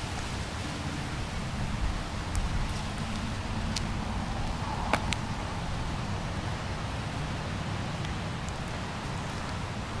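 Steady rushing of wind and waves, with a flickering low rumble of wind on the microphone. A few sharp clicks stand out, the sharpest about five seconds in.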